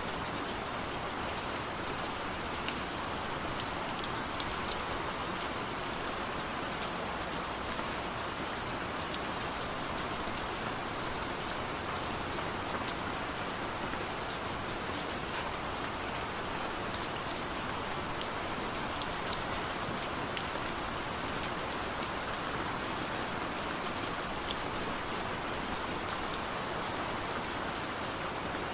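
Steady rain falling on a surface, with many distinct drop ticks over an even hiss and no thunder.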